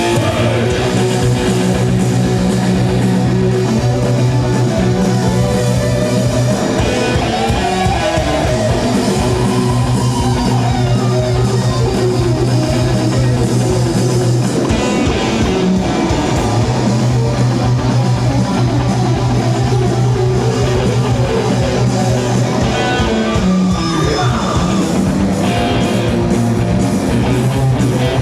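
Loud rock music from a band: electric guitar riffing over a drum kit, with long held bass notes.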